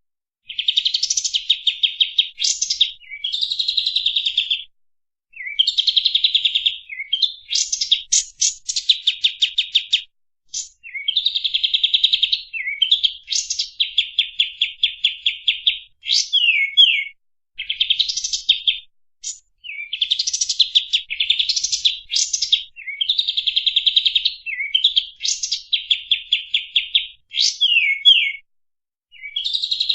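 Kapas tembak songbird singing high-pitched, fast and tightly packed rapid-fire trills. The phrases come one after another, each about one to two seconds long, with short pauses between them.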